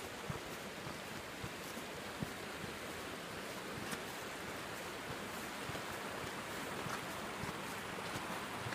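Steady rush of a river running over a shallow riffle, growing a little louder toward the end, with a few crunching footsteps on river gravel.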